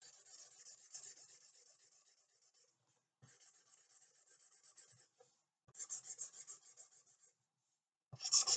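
Pen drawing on paper: faint scratchy strokes in three short runs with brief pauses between them, turning louder just before the end as the strokes get firmer.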